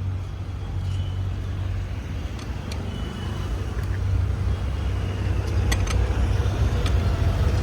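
Steady low hum of a motor vehicle engine running, with a few short sharp clicks about three and six seconds in.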